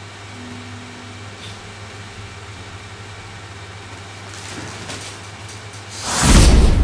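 Steady low hum of room noise, then loud music bursts in about six seconds in.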